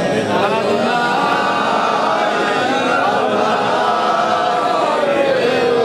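Group of men chanting together in a slow, drawn-out melody, the pitch sinking toward the end.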